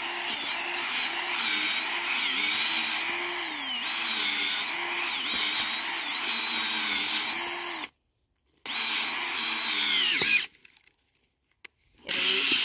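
Cordless drill with a long bit boring into soil: the motor runs steadily, its pitch dipping briefly several times as the bit takes load in the dirt. It stops about eight seconds in, then runs again twice more for shorter spells, falling in pitch as it winds down after the second one.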